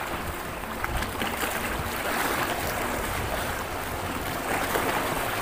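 Choppy sea water washing and splashing against a small boat, with a steady, even rush of noise and some wind rumble.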